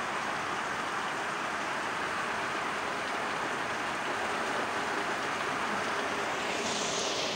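Heavy rain pouring down in a thunderstorm downpour, a steady dense hiss of rain on the ground and roof that turns brighter and hissier near the end.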